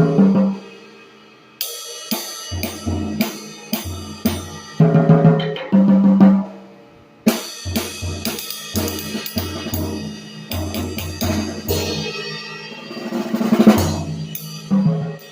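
Drum kit played to demonstrate vintage Sabian cymbals: cymbal strikes ringing over kick drum and tom hits in short phrases, with brief pauses, and a cymbal wash that swells to a loud peak near the end.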